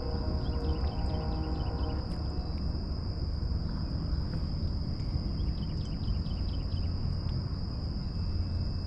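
Steady high-pitched insect drone over a constant low rumble, with a few short rapid chirps about a second in and again around six seconds in. Faint background music fades out in the first two seconds.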